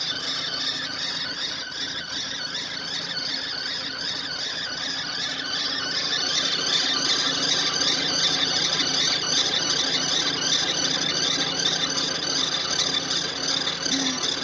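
VW Jetta Mk5's 1.6-litre BSE four-cylinder engine running, with a continuous fast, repeating high-pitched squeak coming from the timing-belt area.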